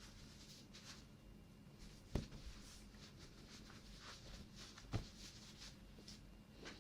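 Faint soft brushing or rubbing strokes with two light taps, one about two seconds in and one about five seconds in.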